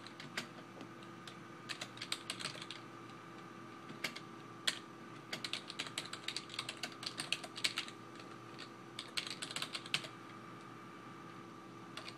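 Typing on a computer keyboard: quick runs of keystrokes broken by short pauses, over a faint steady electrical hum.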